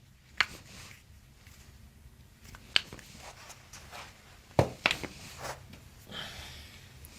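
Joints of the foot cracking as a chiropractor manipulates it: about four sharp pops at uneven intervals, two of them close together past the middle, with a few fainter clicks between.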